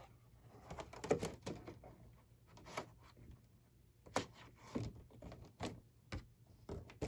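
Scattered light clicks and taps, with soft rustling between them, of a plastic cutting mat being handled and slid into the front of a Cricut Maker cutting machine.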